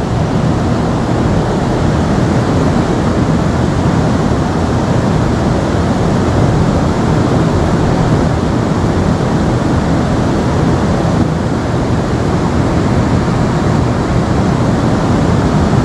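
Steady, loud rush of flowing river water.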